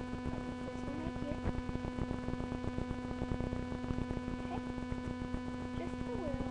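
Steady electrical hum with a dense crackle over it, as picked up by a webcam's built-in microphone. A faint voice fragment comes near the end.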